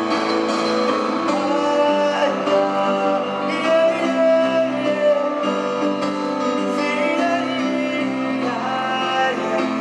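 Slow music with long held notes layered over one another and a melody moving above them: the score for the dance piece.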